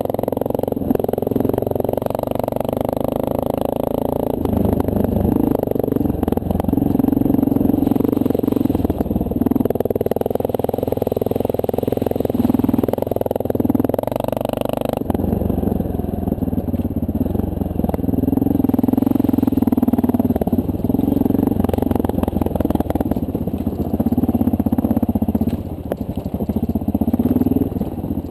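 2009 Honda CRF230L dual-sport motorcycle's single-cylinder four-stroke engine running under way, its note rising and dropping every few seconds with throttle and gear changes.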